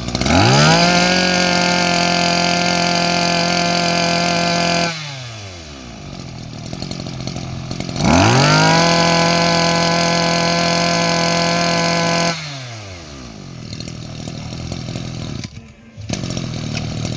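Small 21 cc two-stroke engine of a Stihl FS 21 brush cutter, revved to full throttle twice for about four seconds each, dropping back to idle between. Near the end it cuts out for a moment and runs again as the starter cord is pulled.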